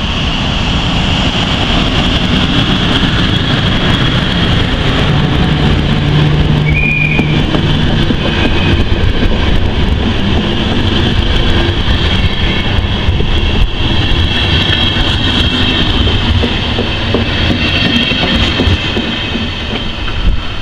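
An EP09 electric locomotive and its passenger coaches pass close by at speed, their wheels running loud and continuous over the rails. A steady high-pitched squeal from the wheels runs throughout.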